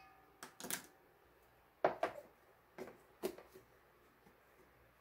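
Light clicks and knocks of a plastic measuring spoon and a baking powder can being handled, the can's lid pressed back on: several separate knocks, the loudest about two seconds in with a brief ring.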